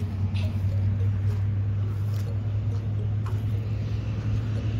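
A steady low hum, like a motor running, over outdoor background noise, with a few faint footsteps on dry dirt.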